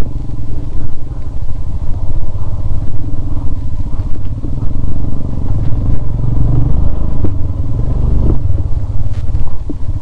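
Motorcycle engine running at low revs on a rough off-road trail: a steady, pulsing chug with a few short knocks and clatter from the bike over the ground.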